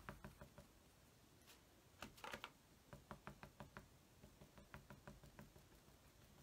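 Foam sponge dauber tapping paint onto a wooden cutout: faint, quick light taps in short runs, a few a second.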